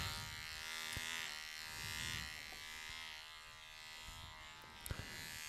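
Electric hair clippers buzzing steadily as they cut the short hair at the back of a man's head, with a couple of small knocks near the end.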